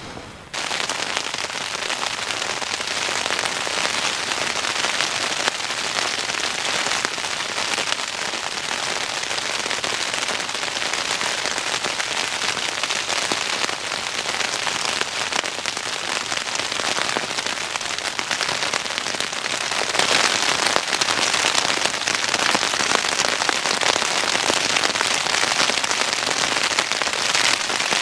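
Heavy rain pattering steadily on the fabric of a Terra Nova Southern Cross 1 tent, heard from inside, growing heavier about two-thirds of the way through.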